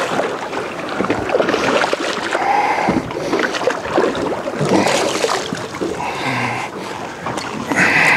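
Water splashing and slapping against the side of a small aluminium boat, with wind on the microphone, as a snapper is hauled up and splashes at the surface on a longline trace. The sound is broken by short knocks and splashes, with a couple of brief higher-pitched tones near the end.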